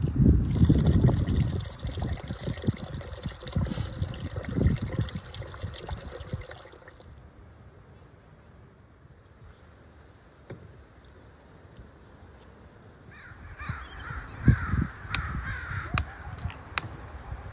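Rice being swished and rinsed by hand in a pot of water, with wind buffeting the microphone. After about seven seconds it goes quieter; then, in the last few seconds, crows caw repeatedly, with a few sharp knocks.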